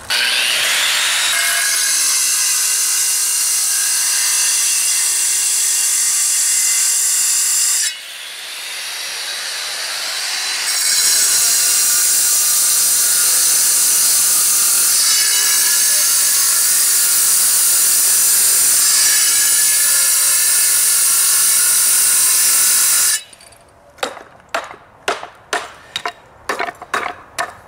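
Handheld angle grinder cutting through flagstone, a loud gritty whine with stone-cutting hiss. It eases off about eight seconds in, builds back up over a few seconds and cuts hard again, then stops with about five seconds left, followed by a run of sharp knocks and clicks.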